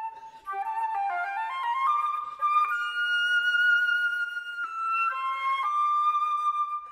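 Solo concert flute playing an unaccompanied classical melody. After a brief pause it plays a quick rising run of notes, then a long held high note, then a few slower notes.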